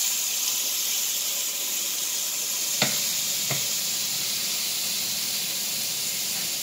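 Marinated steaks sizzling on the hot ribbed plate of an electric contact grill, a steady hiss. Two light clicks come about half a second apart midway through.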